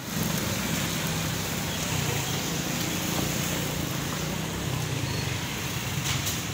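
Motorcycle engine running while riding, under steady wind and road noise, with a brief bump about six seconds in.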